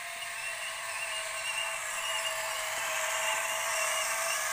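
Remote-control toy excavator's small electric motors whirring steadily as it runs.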